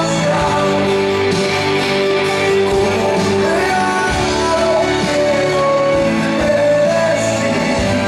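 Music: a song with a singer over instruments, the voice holding long notes.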